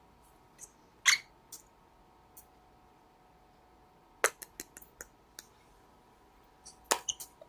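Cockatiel making scattered soft beak clicks: a few single ticks, then small quick clusters about four seconds in and again near the end.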